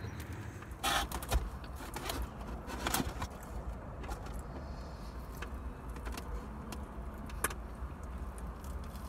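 Rustling and crinkling of takeout food packaging, in a few short bursts about a second and three seconds in, with a click near the end, over the steady low hum of a car idling.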